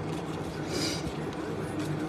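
Trading cards being handled: one short swish of a card sliding across the stack about a second in, over a steady low hum.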